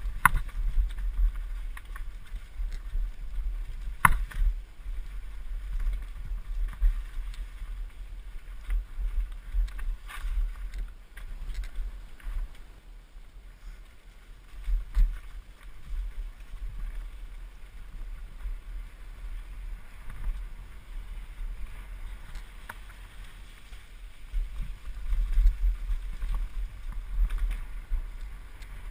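Mountain bike descending a rocky trail at speed, heard from the rider's helmet: a low, fluctuating wind rumble on the microphone mixed with the rattling and knocking of the bike over rocks, with one sharp knock about four seconds in.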